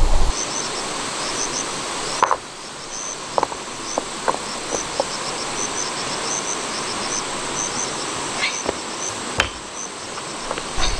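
Insects chirping in short repeated high pulses over a steady background hiss, with a few sharp knocks of stones being handled and set down.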